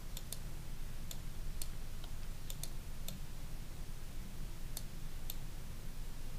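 About ten clicks of a computer mouse at irregular intervals, over a steady low hum.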